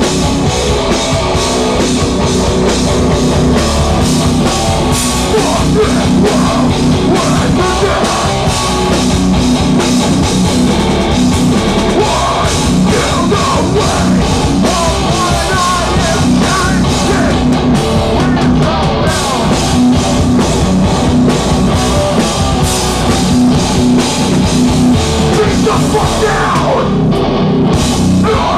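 Hardcore band playing live and loud: distorted electric guitars and bass over a drum kit, played without a break.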